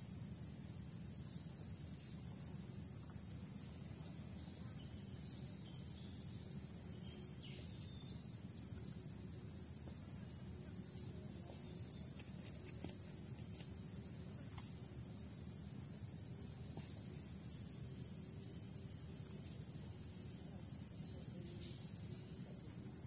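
Insects calling in one steady, high-pitched chorus over a low background hiss, with a few faint knocks.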